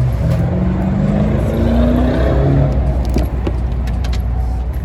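Car engine accelerating, its note rising steadily over the first two seconds or so above a continuous low road rumble, with a couple of sharp clicks a little past the middle.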